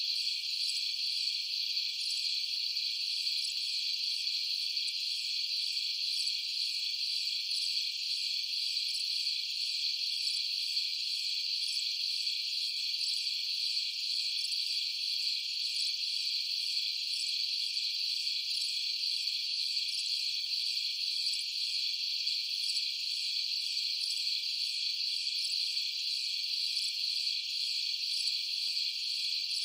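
Continuous high-pitched chorus of insects, a dense, unbroken trill.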